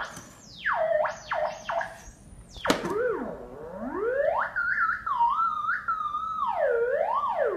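Theremin played by a cat pawing at and moving beside its pitch antenna: one sliding tone that swoops up and drops sharply several times, then rises and wavers up and down as the cat sways near the antenna.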